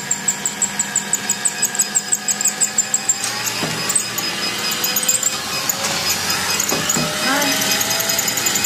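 Treadmill running with a toy remote-control car driving on its belt. A rhythmic high squeak repeats about five times a second, then gives way to a steadier running sound, with a motor whine rising in pitch as the treadmill speed is turned up.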